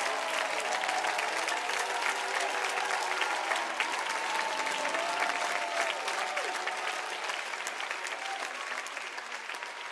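Large audience applauding and cheering, dense clapping with a few voices calling out, slowly dying down over the last few seconds.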